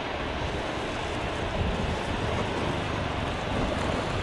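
Steady rumbling noise of a Boeing 737-300 freighter's jet engines as it taxis at low power, with wind buffeting the microphone. It swells slightly about a second and a half in.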